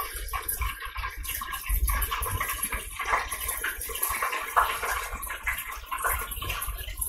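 Buttermilk-battered chicken frying in hot oil in a lidded electric deep fryer: a steady crackling sizzle.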